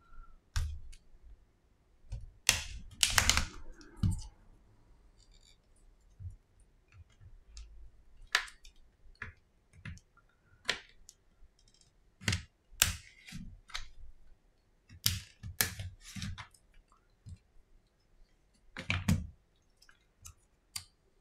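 Irregular clicks, snaps and taps of Samsung Galaxy A10 phone parts being handled and set down on a silicone repair mat, loudest in a cluster a few seconds in and again near the end.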